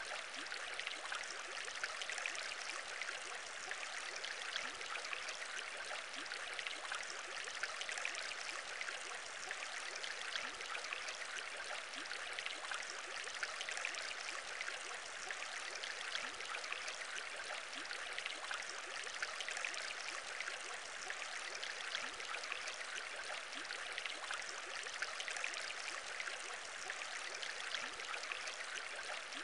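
Aquarium bubbles: steady bubbling water with many small pops over a constant hiss.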